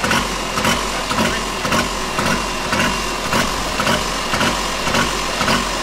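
Turbocharged garden pulling tractor engine idling, with a rhythmic pulse about three times a second.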